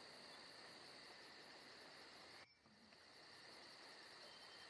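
Near silence: a faint, steady high-pitched background hiss that cuts out for about half a second in the middle.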